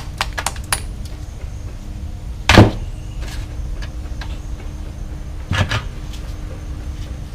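Hand tools working on a lawn mower carburetor: a quick run of light metal taps, then a heavy knock about two and a half seconds in and a second one a few seconds later, over a steady low hum. It comes while forcing out a float needle stuck fast with varnish.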